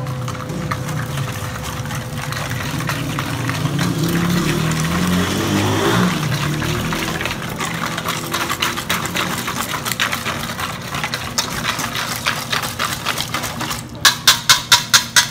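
Wire whisk beating a thin liquid marinade in a stainless steel bowl, the wires clicking and scraping against the metal, over a steady low hum. Near the end comes a quick run of about six sharp, evenly spaced metal taps.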